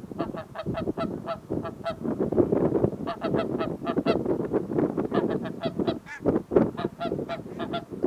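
Barnacle geese calling: a rapid, unbroken run of short, high yapping honks, several a second, with a low rushing noise underneath from about two seconds in.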